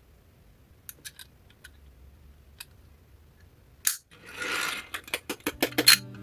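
Scattered faint clicks, then a sharper click about four seconds in, a short hiss, and a quick run of sharp clicks near the end.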